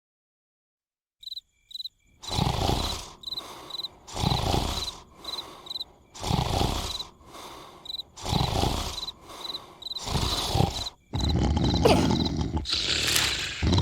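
Cartoon snoring: a loud, rough snore about every two seconds with softer breaths between, over steadily chirping crickets. Near the end comes a longer, louder stretch of sound.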